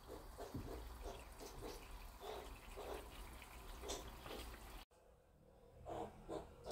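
Faint wet chewing and lip-smacking of someone eating, small irregular clicks several times a second. They break off suddenly about five seconds in.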